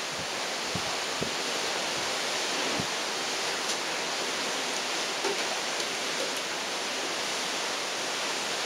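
Steady rushing noise of wind and water passing a moving ship, with a few soft low thumps in the first three seconds.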